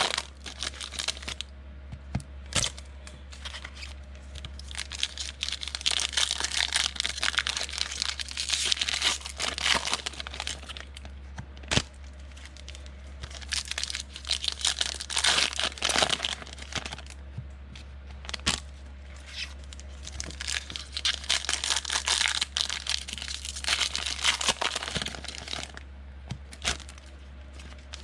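Trading-card pack wrappers being torn open and crinkled by hand, in repeated bouts of crackling with quieter pauses between, and a sharp click about twelve seconds in.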